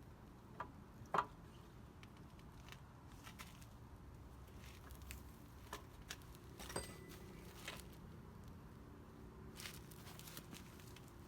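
Sparse light clicks and knocks of a motorcycle front wheel and its parts being handled and worked into place, with one sharper knock about a second in.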